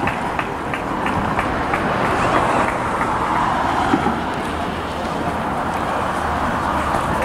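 Steady hum of road traffic, with faint light ticks about three times a second.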